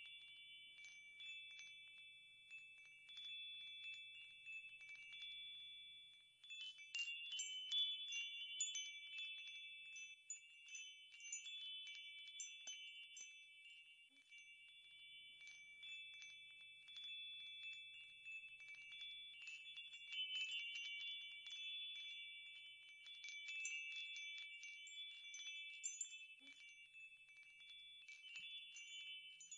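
Wind chimes ringing softly: a few sustained metallic tones struck again and again at irregular moments, more busily from about six seconds in.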